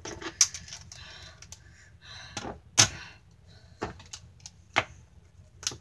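Plastic toys being handled: several sharp knocks and clatters as a plastic toy ladder and wrestling action figures are set down on a toy wrestling ring, the loudest knock about three seconds in.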